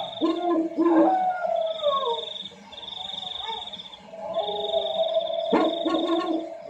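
Horror-style ringtone sound effect: falling, howl-like animal cries over a steady high electronic tone that cuts in and out, with sustained lower tones and two sharp knocks near the end.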